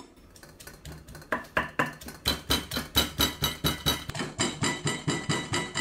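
Wooden pestle pounding in a metal mortar: rapid, even strikes about four a second, each with a short metallic ring, soft at first and loud from about a second and a half in.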